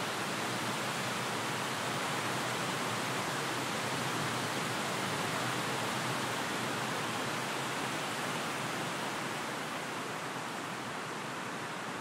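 A steady, even hiss with no distinct sounds in it, easing slightly near the end.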